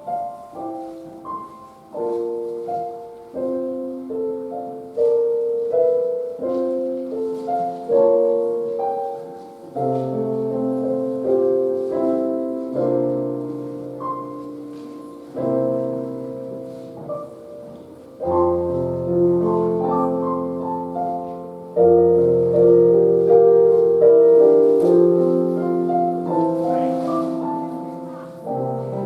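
Piano playing a postlude: a slow melody over chords, with a low bass line joining about a third of the way in and the playing growing fuller and louder past the middle.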